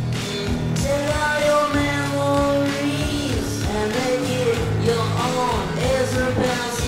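Background rock music with guitar: a lead melody of long held notes that bend and slide between pitches over a steady accompaniment.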